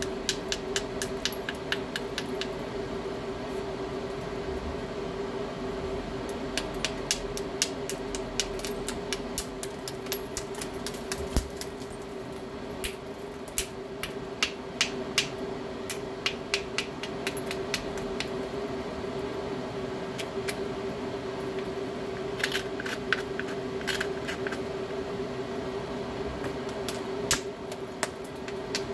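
Hammerstone tapping the edge of a stone biface during knapping. It makes runs of quick, light, sharp clicks, several a second, broken by short pauses.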